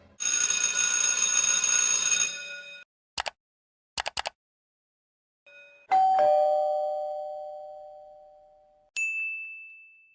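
A string of short sound effects. First a bright ringing for about two and a half seconds, then a few sharp clicks. Then a two-note falling ding-dong doorbell chime that fades slowly, and a single high ding near the end.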